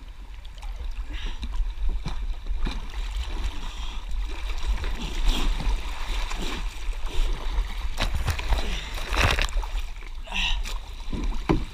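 Kayak paddle strokes splashing in fast-flowing muddy floodwater, with the water rushing and gurgling around the boat. The splashes come irregularly, the loudest about eight and nine seconds in, over a steady low rumble.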